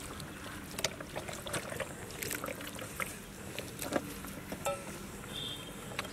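Oily hands rubbing and patting mustard oil over a raw goat carcass: irregular wet squelches and slaps with scattered small clicks.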